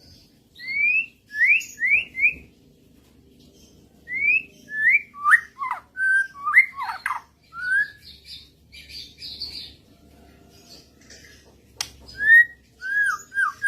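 Murai (Copsychus songbird) singing: short, clear whistled notes that glide up and down, in bursts of several notes with pauses between and some softer chattering in the gaps.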